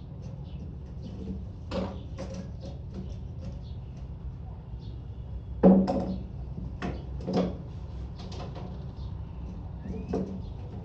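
Irregular knocks and clunks from woodworking, loudest about halfway through, over a steady low hum.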